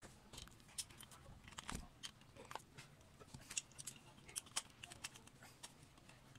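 Faint, irregular light clicks and ticks of small metal carburetor parts and linkage being handled during disassembly.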